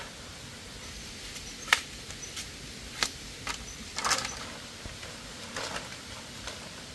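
Scattered, irregular sharp clicks and knocks over a steady hiss, with a small cluster of them about four seconds in.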